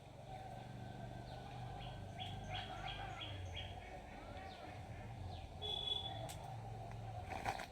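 Small birds chirping and singing, with a quick run of five short repeated notes a few seconds in, over a steady low outdoor background noise. A sharp click sounds near the end.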